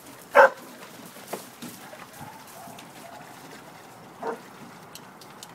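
A dog barks once, loud and short, about half a second in, then gives a second, softer bark a little after four seconds in.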